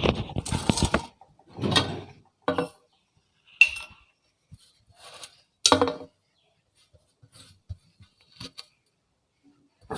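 Pestle knocking in a mortar, crushing black peppercorns, cumin and coriander seeds: a handful of irregular knocks and clinks, one with a brief ring, then a few fainter taps near the end.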